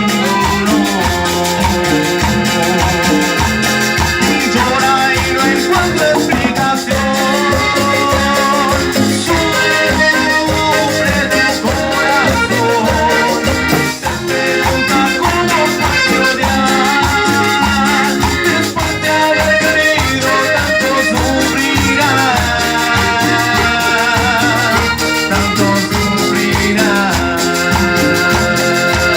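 Live cumbia band playing an instrumental stretch: a keyboard melody over a steady dance beat and shaker.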